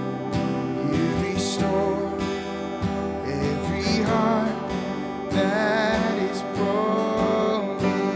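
Music with strummed acoustic guitar and a melody line that wavers with vibrato, held on a long note near the end.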